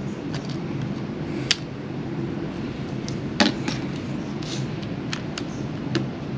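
Light clicks and taps of a small screwdriver and plastic laptop parts being handled during disassembly, about eight scattered through, the loudest about a second and a half in and again about three and a half seconds in, over a steady low background hum.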